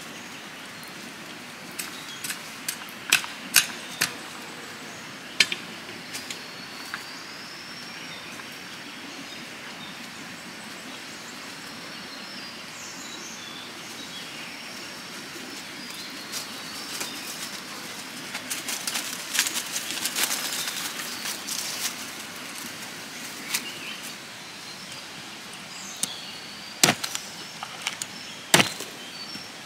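Outdoor ambience with birds chirping and scattered sharp knocks and clicks. Near the end, a large knife chops twice through a woody plant stem against a log, with loud sharp strikes.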